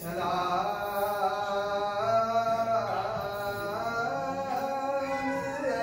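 Chanted singing: long held vocal notes that slide slowly up and down in a steady melodic line.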